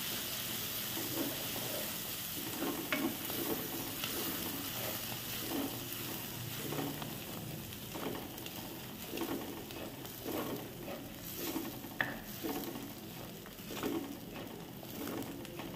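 Ground onion paste sizzling in oil in a clay pot, stirred and scraped with a wooden spatula in repeated strokes a little faster than once a second, with a steady hiss of frying underneath and an occasional sharper knock.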